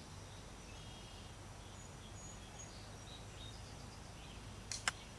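Faint outdoor background with a low steady hum and a few faint bird chirps, then one sharp click near the end.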